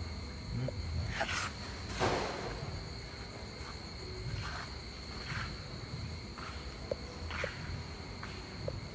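Irregular footsteps and scuffs on a concrete workshop floor, the loudest about 2 seconds in, over a steady high-pitched whine and a low hum.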